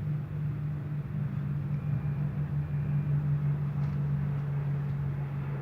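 Apache attack helicopters flying over, heard as a steady low drone of rotors and engines.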